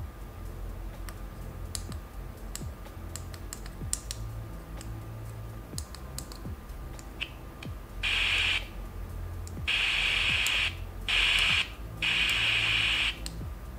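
Small tactile push-buttons on a DIY digital FM radio module clicking repeatedly as channels are stepped, over a low hum. From about eight seconds in, the radio's small speaker gives bursts of static hiss that cut in and out as it tunes, with no station coming through, which the builder puts down to the aerial not being fitted.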